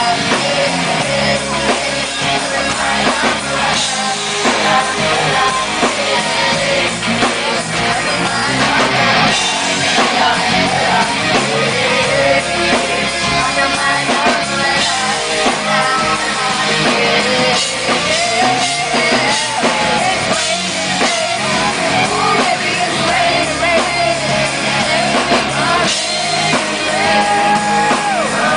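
Live band playing a pop-rock song with drums and guitar, a female lead voice singing over it.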